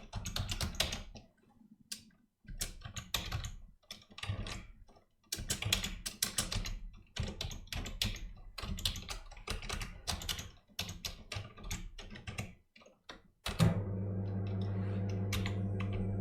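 Typing on a computer keyboard, keystrokes in quick clusters with short pauses. About 13.5 s in, an electric roller-blind motor starts up and runs with a steady low hum, opening the blind on an Open command.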